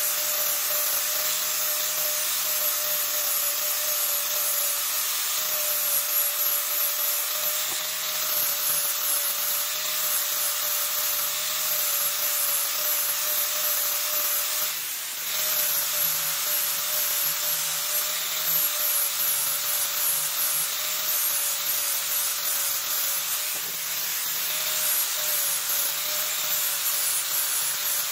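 Angle grinder with a sanding disc running steadily against a wooden roller, its motor whine under the rasp of the abrasive on wood. The sound eases briefly about halfway through, then carries on.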